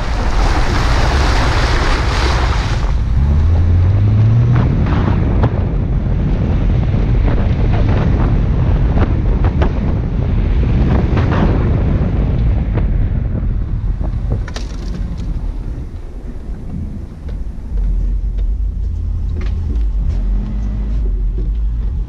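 Wind buffeting the microphone of a camera mounted outside a moving 2003 Subaru Forester, over the car's rumble on a snowy, icy dirt road, with scattered clicks and knocks. The wind hiss is strongest in the first few seconds, and the engine note rises briefly a few seconds in.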